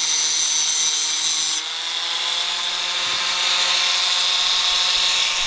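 Power tool running steadily as it cuts the tabs off a metal fuel line, with a high cutting hiss that eases about a second and a half in while the motor keeps running.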